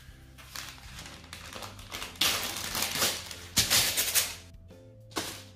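Baking parchment being pulled off its roll and torn off the sheet, a crackly rustling and ripping in several bursts, loudest in the middle, over soft background music.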